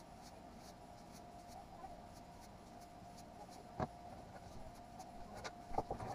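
Paintbrush stroking stain onto a wooden countertop: faint, scratchy strokes about twice a second over a steady faint hum. There is a sharp knock shortly before four seconds in, as the brush goes into the metal can, and a few clicks near the end.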